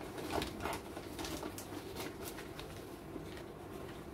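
Butter paper crinkling and rustling as it is rolled around a chicken-and-cheese filling: a run of small crackles for the first two seconds or so, then quieter.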